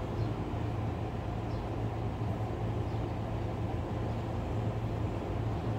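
Steady low hum over a constant background noise, unchanging throughout.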